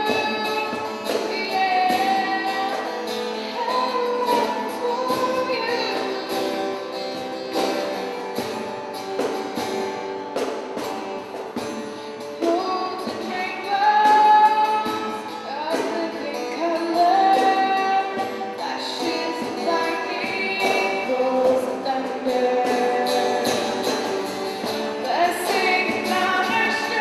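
Live worship band playing a slow contemporary worship song: a woman sings the melody over guitar and drums, with percussion hits throughout and a thin low end.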